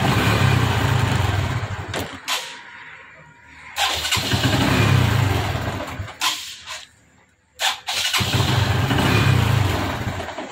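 TVS Victor's single-cylinder four-stroke engine runs in three short spells of about two seconds each, cutting out between them, with a few clicks in the gaps. The stalling comes as the handlebar is turned, the sign of a broken wire or loose socket in the headlamp-visor wiring that interrupts the ignition circuit.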